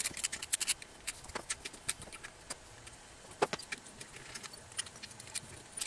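Irregular sharp clicks and metallic taps, with one louder knock about three and a half seconds in, as the oil pan of a Mazda 10A rotary engine is worked loose with a hand tool and handled.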